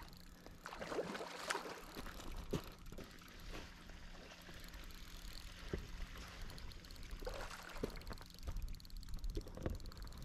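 Faint, irregular splashing and slapping of water from a hooked carp being played close in at the bank, with a few soft knocks scattered through.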